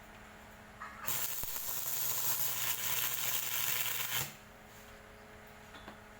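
Stick welding arc burning for about three seconds: an even crackling hiss that starts about a second in and cuts off suddenly, over the steady hum of the welding machine.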